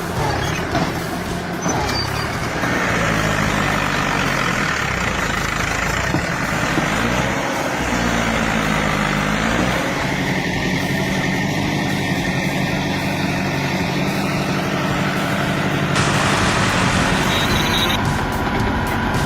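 Heavy machinery engine running under load, its pitch rising and falling for a few seconds in the middle, with the sound changing abruptly twice.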